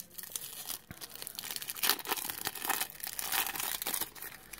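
Waxed-paper wrapper of a 1991 Topps baseball card pack being torn open and crinkled by hand: a run of crackles and tearing, loudest about two seconds in.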